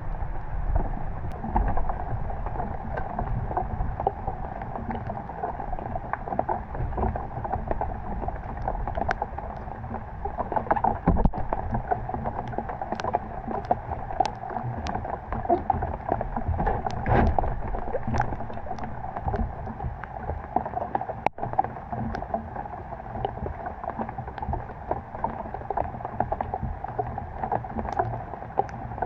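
Water sloshing and splashing steadily, with a low rumble and many scattered sharp taps and drips throughout.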